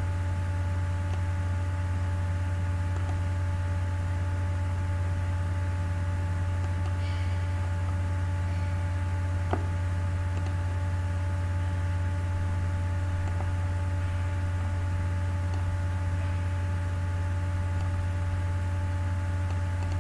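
Steady electrical mains hum with a low buzz and higher steady overtones, with a faint click a little under halfway through.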